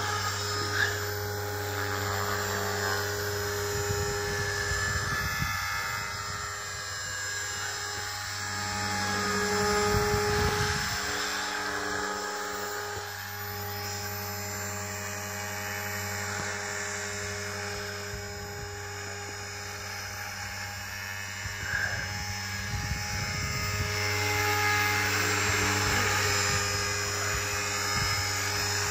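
Align T-Rex 450 electric RC helicopter flying: a steady high whine from its motor and gears with the rotor whirring. It gets quieter through the middle as it moves off, and louder again near the end as it comes back closer.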